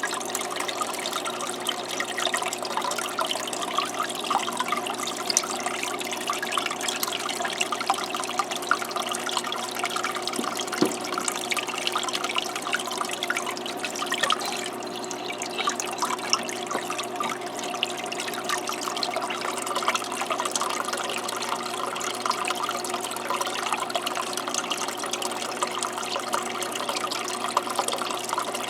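Small aquarium waterfall: water trickling and splashing off a stone into the tank, a steady patter of droplets, with a steady low hum underneath.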